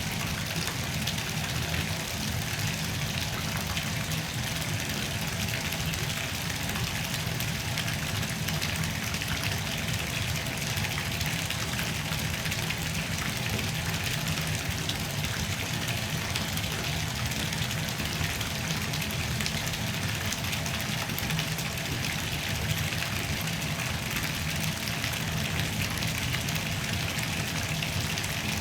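Bathtub filling: tap water running steadily into the tub, an even splashing rush that holds level throughout.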